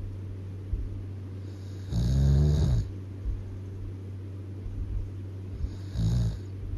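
A person snoring loudly: one long snore about two seconds in and a shorter one near the end, over a steady low hum.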